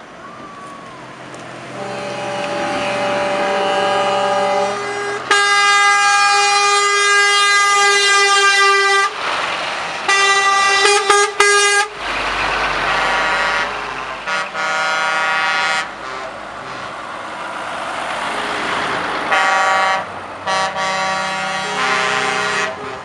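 Truck air horns blowing again and again as trucks drive past one after another: a long blast about five seconds in, a quick run of short toots a few seconds later, and further blasts near the middle and end, with diesel engines and tyre noise between them.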